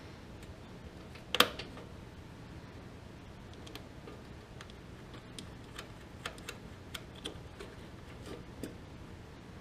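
Small metallic clicks and clinks from battery cable terminals and their nuts being fitted and tightened by hand on a tractor battery. One sharp click about a second and a half in is the loudest, then a scattering of lighter clicks in the second half.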